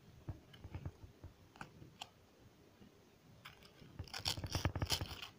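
Clear plastic zip-top bag crinkling as it is handled: a few scattered crackles and clicks, then a denser, louder burst of crinkling about four seconds in.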